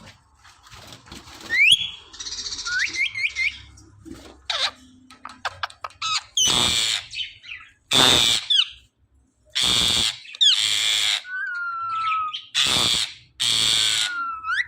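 Pet parrot calling: quick rising whistles and chirps, then about six loud, harsh squawks at irregular intervals, with a short, slightly falling whistle among them near the end.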